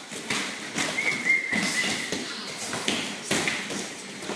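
Bare feet thudding and slapping on foam pads and floor mats as children jump, stomp and strike, a string of irregular taps and thuds. A brief high squeak comes about a second in.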